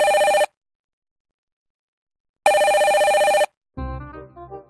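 Telephone ringing with a rapid electronic trill: the end of one ring, then a full ring of about a second. Keyboard music starts near the end.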